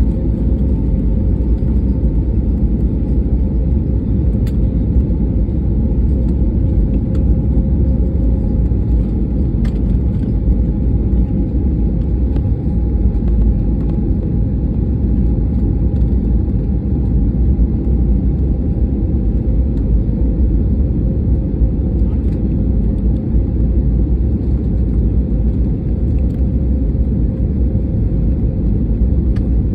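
Steady low rumble of an Airbus A320-family airliner's jet engines and airflow, heard inside the cabin on approach to landing. Two faint hums sit over it: one stops about nine seconds in, and the other slowly drops in pitch and fades out later.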